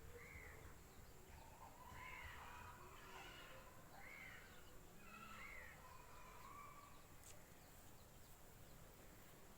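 Faint bird calls: a series of short arched notes, one about every one to two seconds, with a few lower, flatter notes between, over quiet outdoor background noise.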